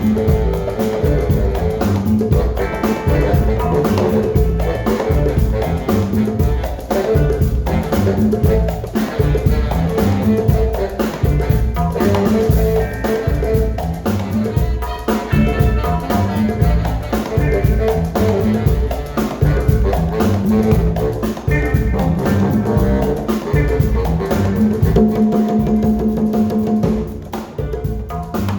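Live band playing an upbeat, percussion-driven dance groove, with drum kit and bass under it and sustained pitched instrument lines on top.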